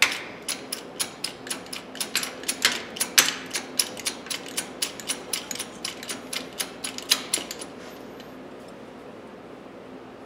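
A small hydraulic shop press being worked by hand: a rapid, even run of sharp mechanical clicks, about four a second, that stops after about seven and a half seconds.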